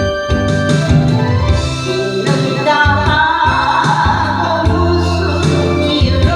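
A Korean ballad song: keyboard accompaniment over steady held bass notes. A singing voice with vibrato comes in about two seconds in.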